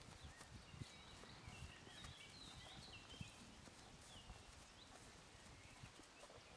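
Faint pasture ambience: soft low thuds of a mare's and foal's hooves walking on grass, with small birds chirping in the background through the first few seconds.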